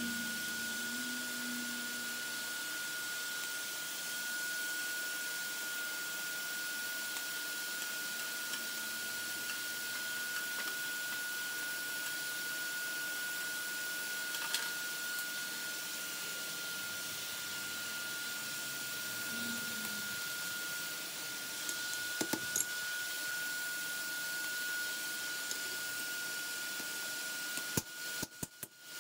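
Forge blower running steadily: an even hiss with a constant high whine. A few hammer blows ring on the anvil near the end.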